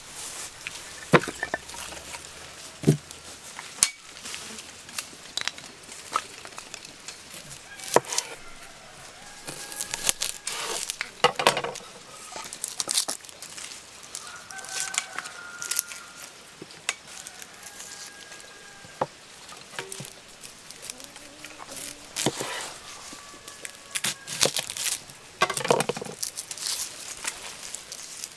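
Dry onion skins crinkling and tearing as onions are peeled by hand, with scattered knife knocks on a wooden cutting board. Hens cluck faintly now and then.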